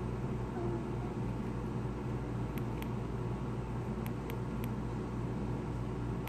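Faint light clicks of a box mod's fire button, pressed in short pulses to heat a pre-built coil on an RDA red hot: two clicks about two and a half seconds in, then three more, about three a second, around four seconds in, over a steady low hum and hiss.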